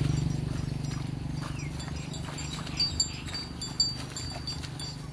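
A cow cropping grass, giving a few short tearing crunches about three seconds in, over a steady low idle of a motorcycle engine.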